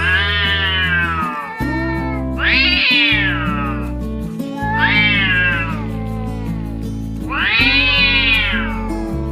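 Cat meowing four times, about every two and a half seconds; each meow is long and rises then falls in pitch. Background music with steady low notes plays underneath.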